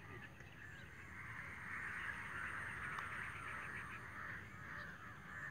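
Faint outdoor chorus of animal calls, swelling in the middle and fading again, over a low steady rumble.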